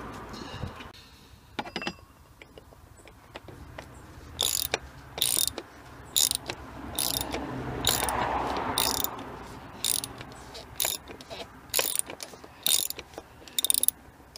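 Socket ratchet clicking in about a dozen short runs, roughly one a second, as it turns an oil filter cup socket to screw the oil filter housing cap back down on a BMW N42 engine.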